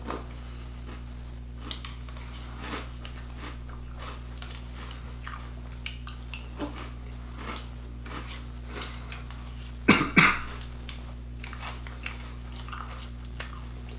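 Someone chewing crunchy cereal, with small scattered crunches and spoon-on-bowl clicks over a steady low hum. Just under ten seconds in come two loud, sharp sounds in quick succession.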